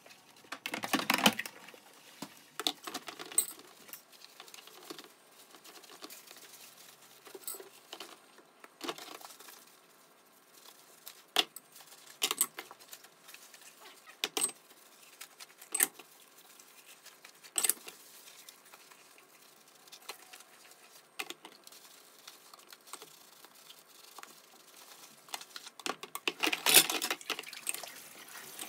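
Dishwashing: plastic food containers and dishes handled and scrubbed with a sponge in a stainless steel sink, with scattered clicks and knocks of plastic on plastic and steel. Louder scrubbing comes about a second in and again near the end.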